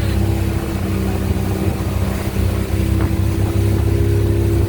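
Boat engine running steadily, a loud, even low hum.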